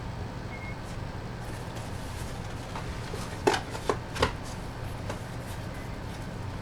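Packaging being handled, with three sharp clicks near the middle over a steady low hum.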